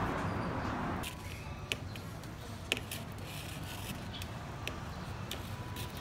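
A steady hiss that cuts off about a second in, then light handling of a PVC pipe and a knife, with a few sharp clicks and scrapes; the two loudest clicks come about a second apart.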